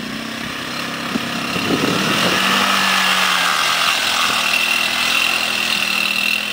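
Kazuma Falcon 150cc ATV engine running under throttle as the quad passes close by, getting louder about two seconds in and staying loud until near the end.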